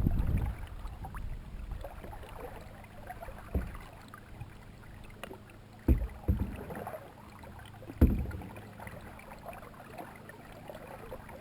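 Canoe being paddled: paddle strokes through the water with a few low thumps, the loudest about six and eight seconds in.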